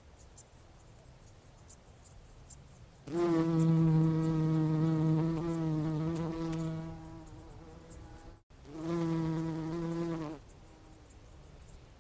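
Bumblebee buzzing in flight: a steady low hum lasting about four seconds that slowly fades, then after a short break a second buzz of about a second and a half that stops abruptly.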